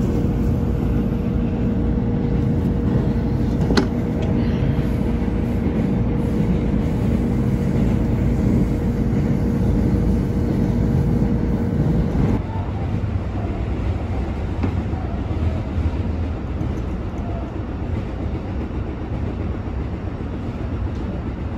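Diesel train running, heard from inside the passenger car: a steady low rumble with a held hum. About halfway through, the hum and the deeper drone stop suddenly, leaving a quieter, even rumble.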